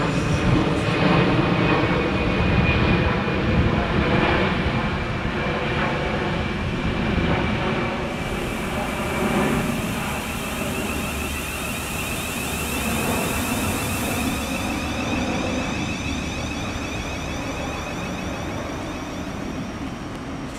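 Siemens Class 707 electric multiple unit running into a platform and slowing: wheel and running noise with traction whine, growing quieter as it draws up. A high hiss lasts several seconds midway, and a whine changes pitch as the train slows.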